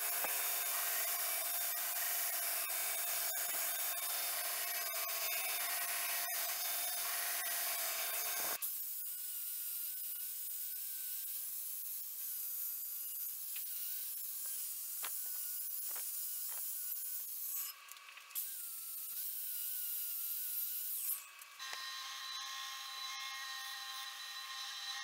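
Belt grinder running with the steel blade pressed to the abrasive belt: a steady, hissing grind. About eight seconds in it changes abruptly to a quieter sanding hiss with a faint wavering whine, broken by two short drops near the end, after which a motor runs steadily with a faint whine.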